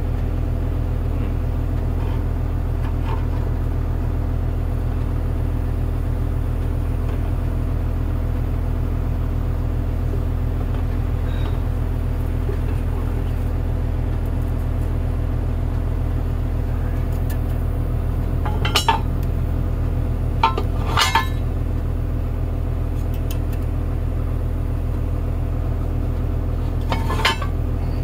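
A heavy engine idling steadily throughout, with a few sharp metal clinks of steel parts being handled about two-thirds of the way in and again near the end.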